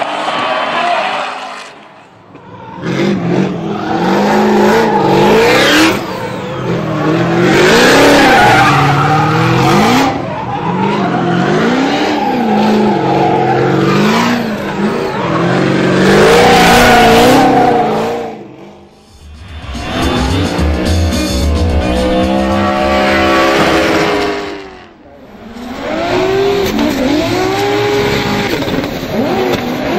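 Drift cars' engines revving hard up and down on and off the throttle, with tyres squealing through the slides. The sound drops away briefly three times as cars pass, and in the middle stretch there is a steadier, deeper engine note.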